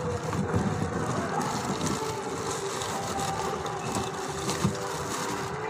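Clear plastic crinkling and rubbing right against the microphone as the phone shifts inside a transparent plastic folder, with one sharper tap near the end, over a steady background hum.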